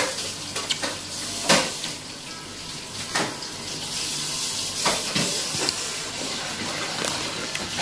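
A steady hiss with about seven short, sharp clicks or crunches scattered irregularly through it.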